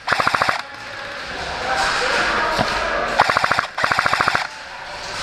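Airsoft A&K M249 Mk46 electric support gun firing short full-auto bursts, each a fast, even rattle of shots. There is one burst at the start and two more close together past the three-second mark.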